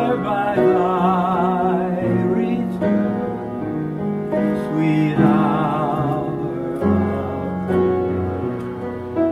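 Upright piano being played, slow sustained chords and bass notes, with a second melody line above it that wavers with vibrato.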